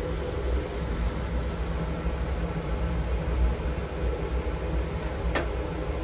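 Steady low rumble and hum inside a lift car while it runs, with one sharp click about five seconds in.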